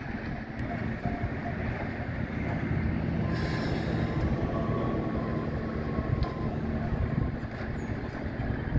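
Steady engine drone from track maintenance machinery at work, a Nordco TRIPP tie machine and a grapple truck. A brief hiss comes about three and a half seconds in.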